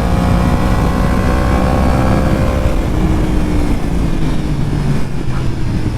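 Yamaha R1's inline-four engine pulling under gentle throttle, its note climbing steadily, then dropping about three seconds in as the bike shifts up a gear and carries on. A steady rush of wind and road noise runs underneath.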